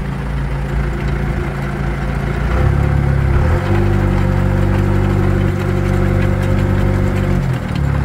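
Tractor engine running as it drives a post hole digger's auger. The engine speeds up about three seconds in, holds steady, then drops back near the end. The old auger gearbox, just filled with gear oil, turns with no grinding heard.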